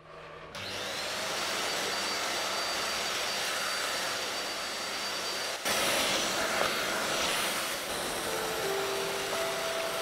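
Stick vacuum cleaner running over a wooden floor: a steady rushing hum with a thin high whine, starting about half a second in.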